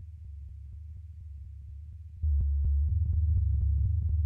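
Live electronic noise music: a deep, steady low drone crossed by a steady train of short clicks. It jumps much louder about two seconds in.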